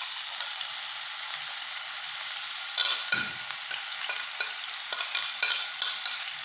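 Grated ginger sizzling steadily as it fries in desi ghee in a pan. From about three seconds in it is stirred, with repeated scraping knocks against the pan.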